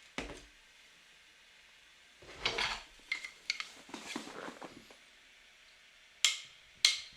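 Small hard objects being handled and set down: a knock, some clattering and rattling in the middle, and two sharp clicks near the end.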